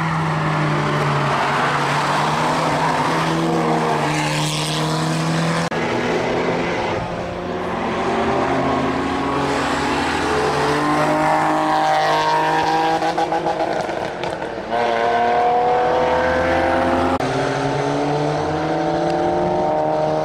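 Motorcycle engines at speed on a racing circuit, rising in pitch as they accelerate and shift up through the gears, several times over. The sound changes abruptly a few times as one run gives way to another.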